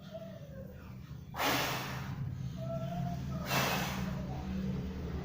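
A person's forceful breathy exhalations, two loud bursts about two seconds apart, over a steady low hum.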